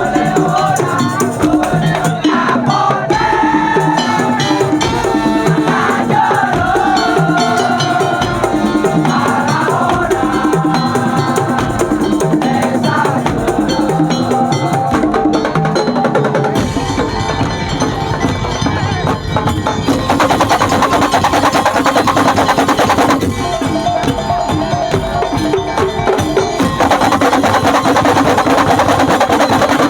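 Madurese daul (tong-tong) ensemble playing: wooden slit drums and drums beat a steady rhythm under a wavering melody line. From about halfway through the percussion grows denser and fuller.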